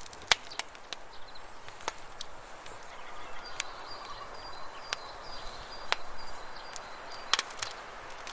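Outdoor ambience with scattered sharp clicks and taps, a high whistled bird call about two seconds in, and a faint repeated high chirping through the middle.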